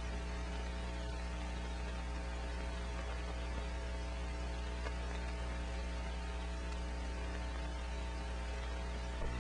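Steady electrical mains hum over a bed of hiss, the noise floor of an old narration recording, with no other sound.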